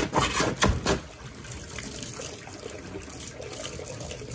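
Bellows (accordion) plunger pumped a few quick strokes in a stainless-steel sink of hot water, squelching and splashing through the first second, forcing water down a slow-draining sink. Then water trickling as the sink drains.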